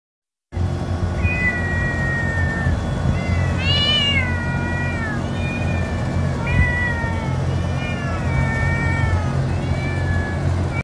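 Stray cats meowing over and over for food: long drawn-out calls that mostly fall in pitch, some overlapping from more than one cat. A steady low rumble runs underneath.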